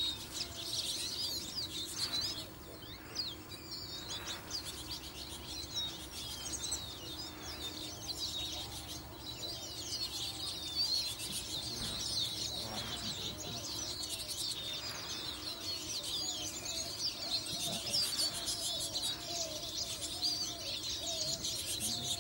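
Many small birds chirping and twittering at once in a dense, continuous chorus, with lower wavering calls joining in over the last few seconds.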